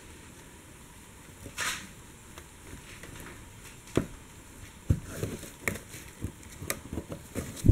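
Plastic quick-connect fittings on the fuel sending unit's metal fuel lines being pushed in and worked off by gloved hands: a short rustle about two seconds in, then a string of sharp clicks and knocks over the second half, the loudest at the very end.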